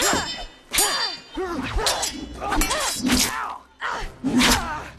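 Metal blades clashing in a fight: two ringing clangs, at the start and about a second in. Then come further blows and thuds mixed with strained grunts and pained cries from the fighters.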